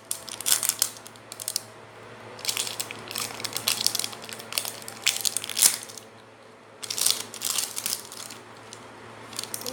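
Plastic wrapping crinkling and crackling as it is peeled and torn open by hand, in four bursts of about a second each.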